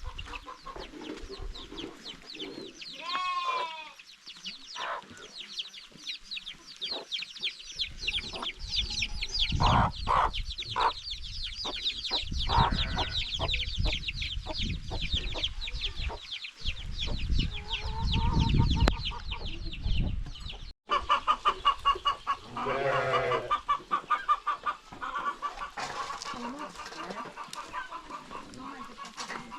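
Chickens clucking, with a dense run of fast, high chirping through the first two-thirds. A low rumbling noise comes in from about eight to twenty seconds in. The sound drops out for an instant about two-thirds of the way through, then the calling carries on.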